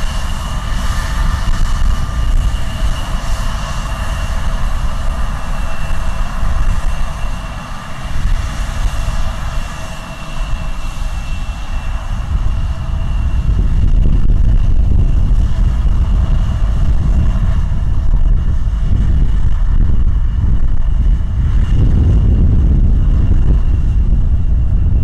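Embraer 170's GE CF34 turbofan engines running at low taxi power: a steady jet whine over a deep rumble, which grows louder about halfway through as the aircraft rolls close by.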